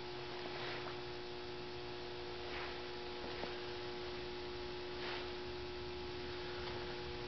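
Steady electrical hum: a low, even buzz with a few held tones and faint background hiss.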